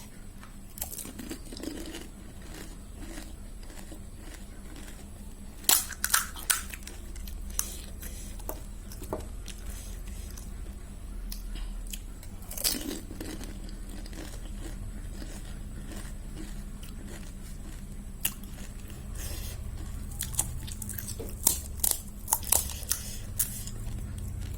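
Crisp golgappa (pani puri) shells cracking and crunching in scattered clusters of sharp cracks, about six seconds in, near thirteen seconds and several times near the end, with biting and chewing, over a steady low hum.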